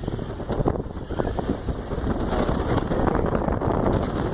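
An SUV's engine and tyres working up a steep, rough track, with a rapid jumble of knocks and crunches from rocks and gravel under the wheels.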